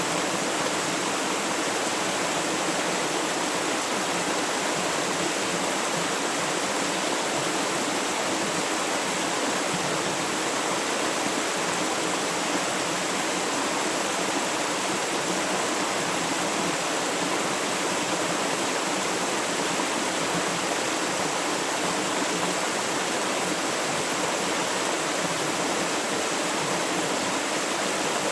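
River water flowing in a steady, continuous rush.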